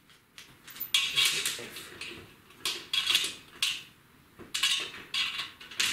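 Small metal screws clinking and plastic hardware bags rustling as a screw is picked out of the furniture-assembly hardware, in several short bursts of clicks and crinkling.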